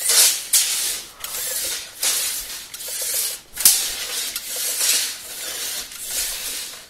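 Steel blade of a Craftsman Sidewinder 25-foot tape measure being drawn out of its case in a series of hand pulls, each a hissing slide of about a second, with short breaks between pulls.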